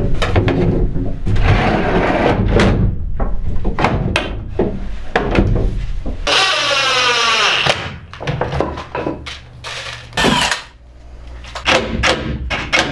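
Cedar boards knocking and rubbing as they are handled and fitted, then a cordless DeWalt drill whirring up in pitch for about a second and a half, followed by a few scattered knocks.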